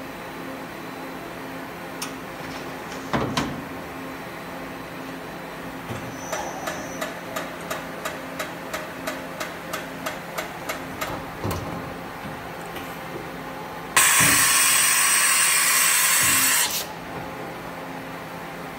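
CNC machining center starting its program: a run of evenly spaced mechanical clicks, about three a second for some five seconds, then a loud hiss of compressed air blowing for nearly three seconds, over the machine's steady hum.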